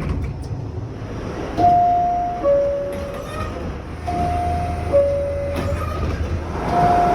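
High-pitched two-tone door chime of a New York City subway car, a higher note falling to a lower one, sounding twice about two and a half seconds apart, with a third starting near the end. Under it runs the low rumble of the train; the chime is the signal that the doors are closing.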